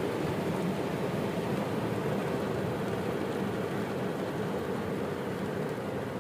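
Rain falling on a car's roof and windows, heard from inside the cabin as a steady hiss that eases slightly near the end.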